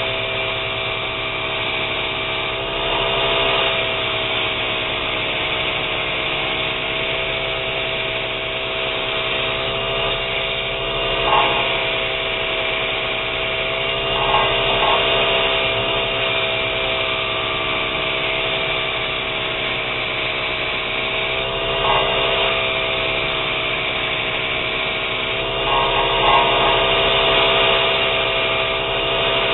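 Wilton square-wheel belt grinder running with a 50-grit belt while a steel saw-blade knife blank is ground against the contact wheel to profile it: a steady motor and belt hum under the grinding hiss, with a few brief surges in loudness as the steel is pressed on and lifted off.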